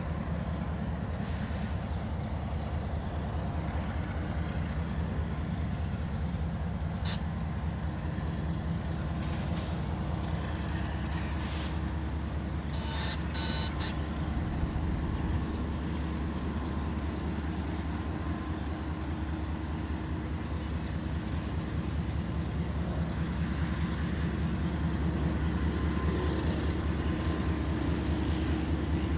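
Low, steady diesel rumble of a lash-up of BNSF GE locomotives moving slowly at light throttle, growing louder toward the end as they draw near.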